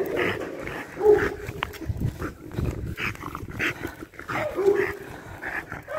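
An agitated, aggressive dog on a lead making short whining sounds, one about a second in and another at about four and a half seconds, among scuffling and clicking noises.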